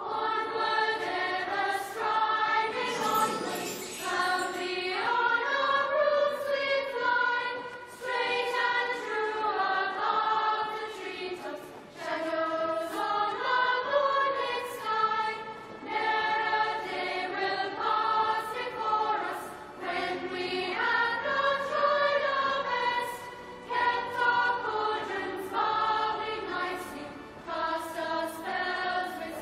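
A TV series' opening theme music: a choir singing a flowing melody with musical backing, with short bright high accents recurring throughout.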